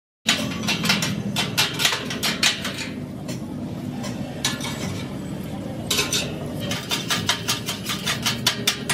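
Quick, rhythmic hand scraping strokes on a welded steel frame, several strokes a second, thinning out in the middle and coming faster again near the end.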